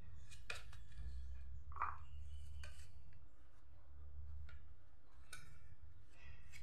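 Irregular short scraping and rubbing strokes of a small hand tool working at the holes of a wooden window frame, the strongest about two seconds in, over a steady low hum.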